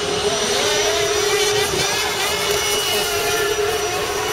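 A jet engine running at a steady pitch: a loud, even rush with a constant whine over it.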